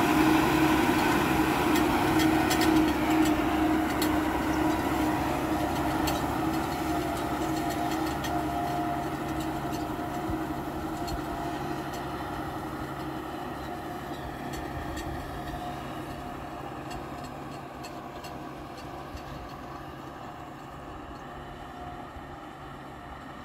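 Case IH Quadtrac 540's six-cylinder diesel engine pulling a six-furrow plough under steady load. It is a steady drone that fades gradually as the tractor moves away.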